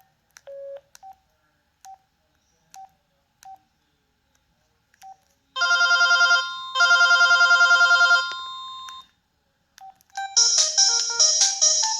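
Pantech PN300 mobile phone: short single key beeps, then a preloaded ringtone playing in two bursts of a rapidly pulsing electronic ring. After two more beeps, a second melodic electronic ringtone starts near the end.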